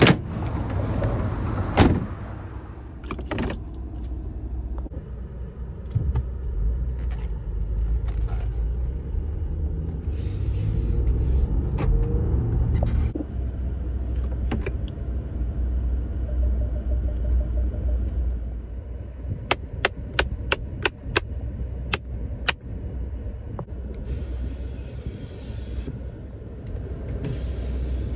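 Ford F-150 Raptor's 3.5-litre twin-turbo EcoBoost V6 idling with a steady low rumble. A quick run of about eight sharp clicks comes about two-thirds of the way through, along with a few scattered knocks.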